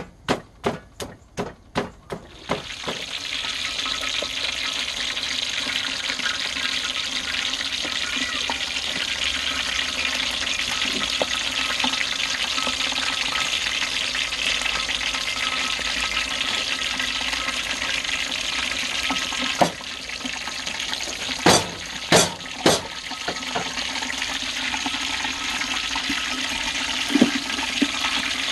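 A pestle pounding in a stone mortar, about three strokes a second, stops a couple of seconds in. Then spice paste sizzles steadily in hot oil in a metal pan, with a few sharp knocks of a metal ladle against the pan.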